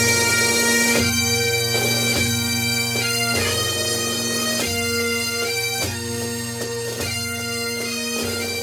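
Music on a droning wind instrument: a melody of held notes changing every second or so over a steady, unbroken drone, slowly getting quieter.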